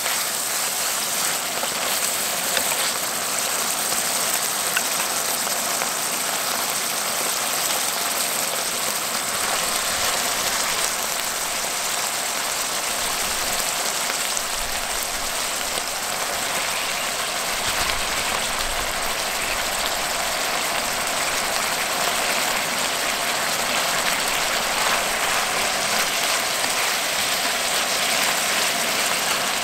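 Thin venison slices in a hoisin-sriracha marinade sizzling in a frying pan over a portable gas stove: a steady, even hiss.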